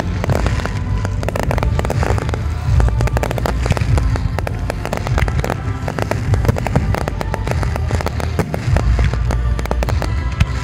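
Fireworks display: a dense run of rapid bangs, pops and crackles from bursting shells, with music from the show's soundtrack underneath.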